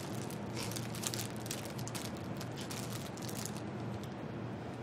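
Plastic bread wrapper crinkling as it is opened and the bread pulled apart, a busy run of rustles that thins out after about three and a half seconds, over a faint steady hum.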